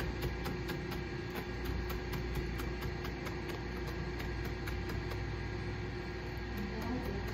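Tojiro Pro nakiri knife finely slicing leafy greens on a plastic cutting board: a steady rhythm of about four quick knife taps a second against the board, over a steady low hum.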